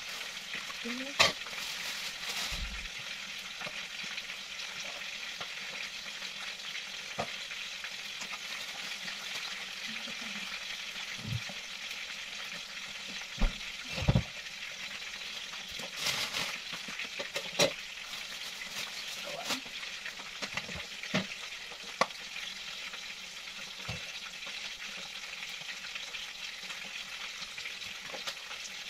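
Chicken pieces deep-frying in hot oil: a steady sizzle, with scattered sharp knocks and clicks.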